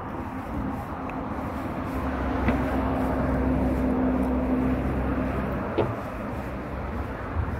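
Steady outdoor background noise with a low motor hum that swells for a few seconds in the middle and then fades away.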